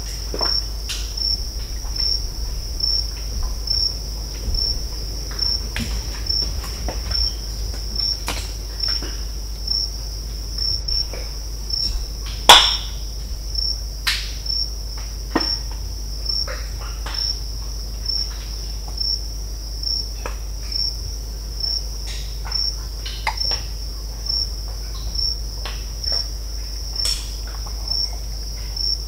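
Cricket chorus, a steady high pulsing trill, over scattered sharp cracks, snaps and pops from mangrove trees; the loudest crack comes about twelve seconds in.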